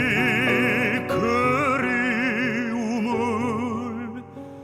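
Baritone singing long held notes with a wide vibrato over piano accompaniment, in a Korean art song. The music thins out and grows quieter near the end.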